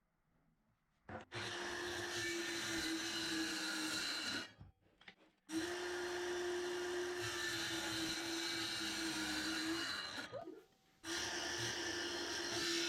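Ryobi circular saw running at a steady pitch as it cuts through MDF board, in three stretches broken by short silences.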